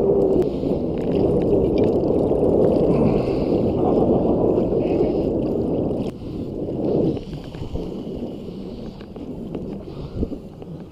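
Water splashing and churning as a big redfish thrashes at the surface beside the boat, loud for about six seconds and then dropping away sharply once the fish is gripped.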